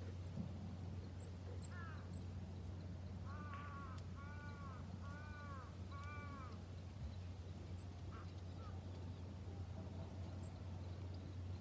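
A crow cawing: four arched caws about a second apart in the middle, with a few shorter calls before and after, over a steady low hum.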